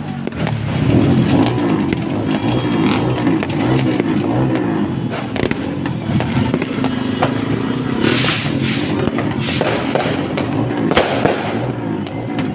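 Fireworks going off: scattered sharp bangs and crackles, the strongest cluster about eight seconds in, over a continuous low rumble.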